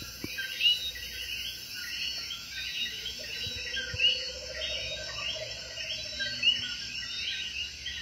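Night chorus of coqui frogs calling over and over in short high chirps, with a steady high insect hum beneath. A few calls close by stand out louder, about a second in, at about four seconds and again past six seconds.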